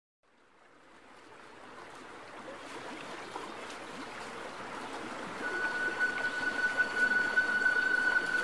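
A soft bed of rushing, stream-like noise fades in from silence. About five and a half seconds in, a steady high tone joins it.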